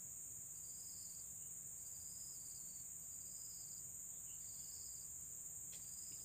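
Insects shrill steadily in a high drone, with a short chirping call repeating about once a second. There is a single faint click near the end.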